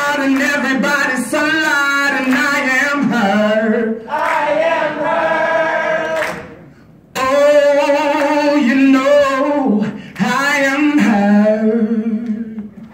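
A solo singer's unaccompanied voice holding long notes with vibrato and sliding runs, without clear words, breaking off for about a second some six seconds in before resuming.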